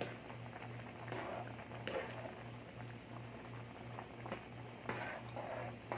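Thick cream sauce bubbling in a pan as it is stirred with a plastic spoon, with a few soft clicks of the spoon against the pan. A low hum pulsing about twice a second runs underneath.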